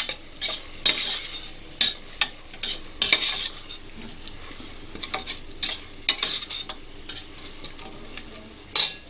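Ginger-garlic paste sizzling steadily in onion masala in a pan while a spoon stirs it, scraping and knocking against the pan at irregular moments. The loudest knock comes near the end.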